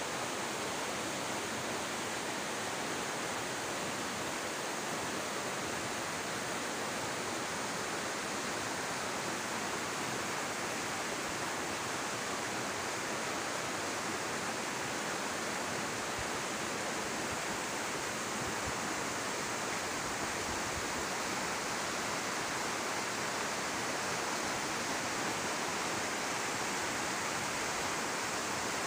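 Steady, even rushing of flowing water, unbroken throughout.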